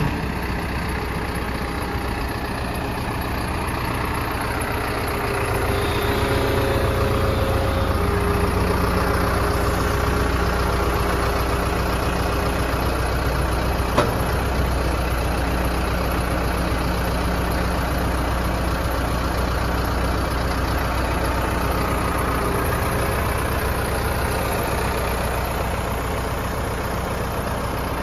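Bull SD76 backhoe loader's diesel engine running steadily while the backhoe arm works, getting somewhat louder a few seconds in. There is a single sharp knock about halfway through.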